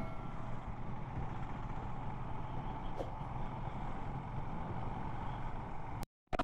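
Royal Enfield Himalayan motorcycle cruising on the highway: steady engine and wind noise, with a brief total dropout to silence near the end.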